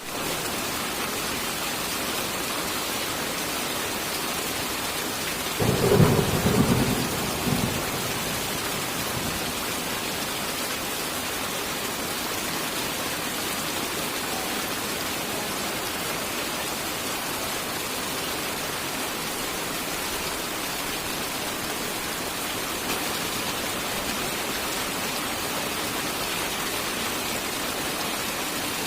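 Steady rain falling, with one rumble of thunder about six seconds in that lasts around two seconds before the rain carries on alone.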